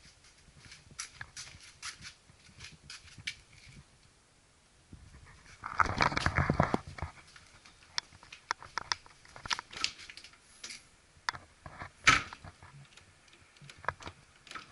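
Handling noise and scattered small clicks and knocks from a handheld camera being moved around a parked tractor, with a louder rustling stretch about six seconds in and one sharp knock about twelve seconds in.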